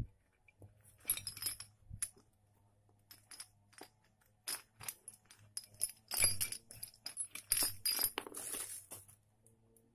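Cloth and plastic wrapping rustling and crinkling in short rustles as it is pulled open, with a few sharp clinks of the rusty metal rods inside knocking together, busiest in the second half.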